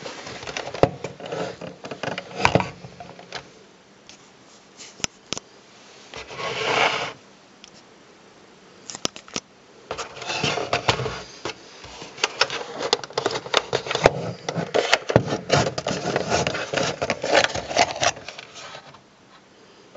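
Hands handling a plastic Polaroid P600 instant camera: irregular scraping and rubbing with sharp clicks, in bursts that are busiest in the second half.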